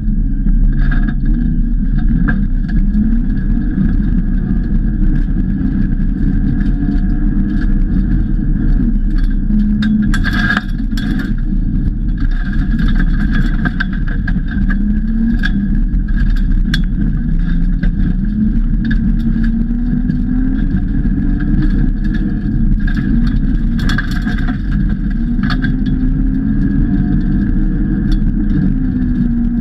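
BMW E46 Compact rally car heard from the cabin, driven hard on gravel. The engine note climbs under acceleration and drops back at each gear change, again and again, with sharp knocks and rattles from gravel striking the car.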